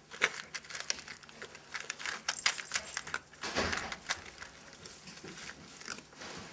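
A cat eating dry kibble from a bowl: irregular crisp crunches and clicks of kibble against the bowl, with a louder bump about three and a half seconds in.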